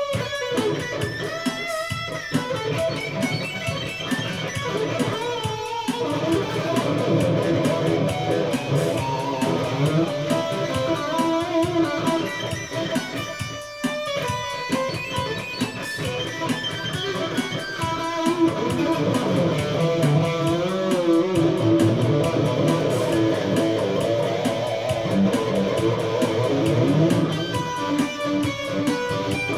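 Electric guitar playing an instrumental passage of a song, with a BeatBuddy drum-machine beat behind it.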